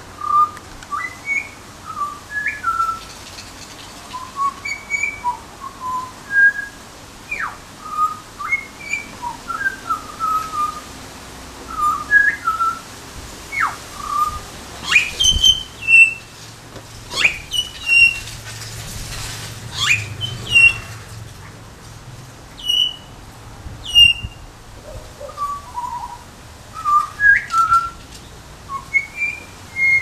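Butcherbird singing: short, clear whistled notes that rise and fall, given in loose phrases throughout. A few sharp clicks sound through the middle.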